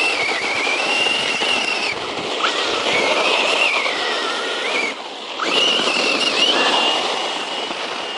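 Brushless electric motor of a 1/10-scale RC truck whining as it is driven hard, the pitch rising and falling with the throttle, over a rushing noise of the tyres in the dirt. The whine cuts out briefly about five seconds in, then comes back and holds steady.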